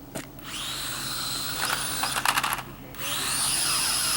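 UDI U818A quadcopter's small electric motors and propellers spinning up with a rising whine about half a second in, with a burst of sharp clicks around two seconds in. The motors drop off briefly near three seconds, then spin up again to a higher, steady whine.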